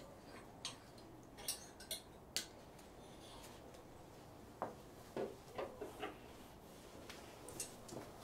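Clothes hangers clicking and clinking on a rack: a few sharp clicks in the first couple of seconds, then softer knocks and fabric rustling about halfway through as a fake-shearling fleece vest on a wire hanger is lifted off.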